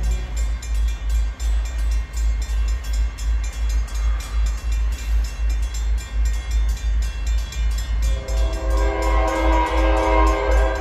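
Background music with a steady deep beat. About eight seconds in, the air horn of an approaching locomotive sounds a chord of several notes, growing louder toward the end.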